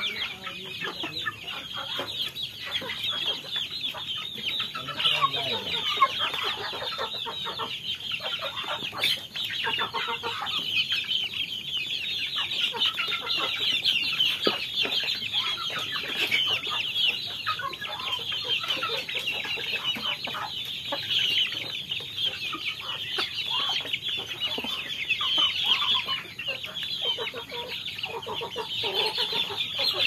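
A flock of young chickens peeping and cheeping in a dense, continuous chorus of short high calls while they peck at feed from a trough, with scattered light pecking taps.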